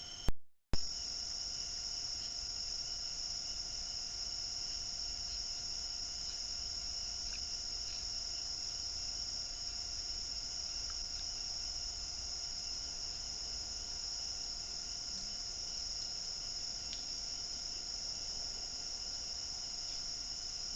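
Steady, unbroken chorus of crickets or similar insects, a constant high-pitched trill, interrupted by a brief click and dropout about half a second in.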